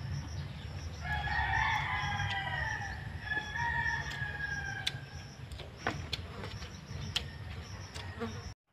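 Rooster crowing, a long drawn-out call starting about a second in, then a second call right after it, over a steady low rumble. A few sharp clicks follow later.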